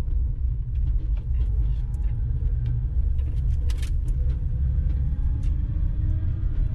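Riding noise of an electric three-wheeler on the move: a low, uneven rumble of wind and road, with small ticks and one sharp click a little under four seconds in.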